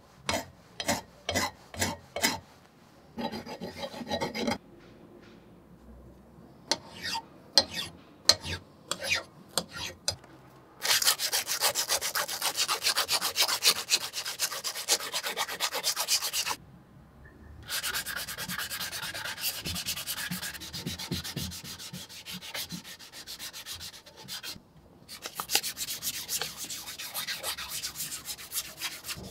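Hand file strokes scraping down a weld spot on a cast-iron vise body, a series of separate strokes. About ten seconds in it gives way to continuous hand sanding with a fine 1000-grit sanding pad rubbed back and forth over the metal, in three long stretches with short pauses.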